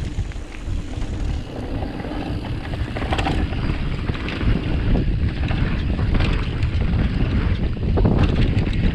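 Mountain bike ridden down a dirt trail: wind rumbling on the microphone and tyres running over the ground, getting louder as speed builds, with scattered knocks and rattles from the bike over bumps.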